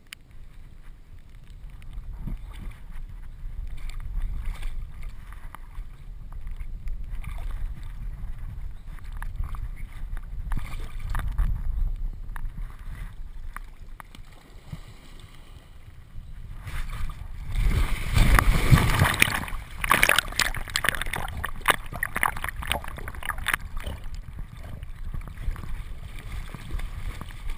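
Muffled water sloshing and rustling as a dog wades at a river's edge and walks out onto a pebbly bank, heard through a waterproof camera housing strapped to its back, with a steady low rumble throughout. About two thirds of the way in there is a louder spell of crackling and splashing noise.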